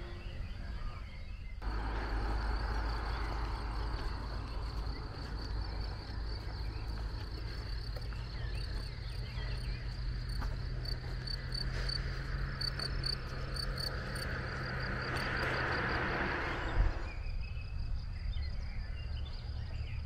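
Meadow insects chirping with a steady high trill that pulses in quick rhythmic runs, over a low continuous rumble. A rushing noise swells toward the end and stops abruptly.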